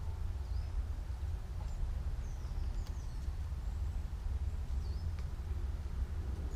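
Steady low rumble of wind buffeting the microphone, with a few faint, brief high bird chirps over it.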